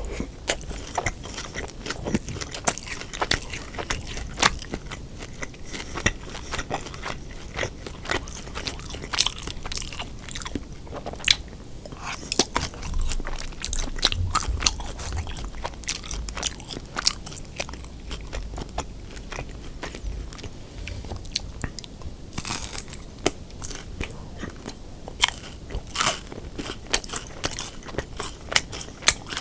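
Close-miked eating: a person biting and chewing crisp fried food, likely the battered sweet and sour pork, with many sharp crunches throughout.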